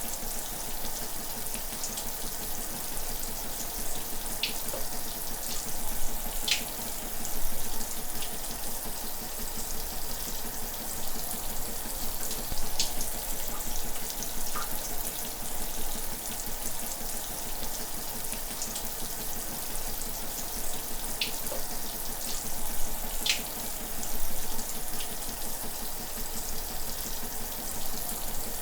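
Shower running steadily: a continuous hiss of water spray with now and then a brief splash.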